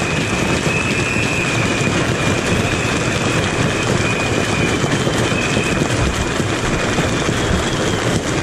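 Steady, loud rumble of vehicle engines and traffic, with a faint high-pitched whine that fades in and out.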